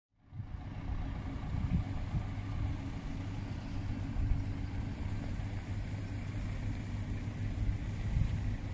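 Steady low engine hum with a rumbling undertone, fading in just after a brief silence.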